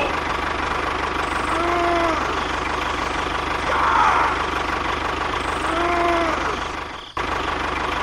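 A tractor-type engine running steadily at idle with a regular knocking beat. A few short rising-and-falling tones sound over it, and the sound drops out briefly about seven seconds in.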